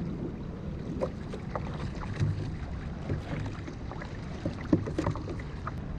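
Water slapping and sloshing against a kayak hull on choppy sea, over a steady rumble of wind on the microphone, with a few sharp knocks, the loudest about three-quarters of the way through.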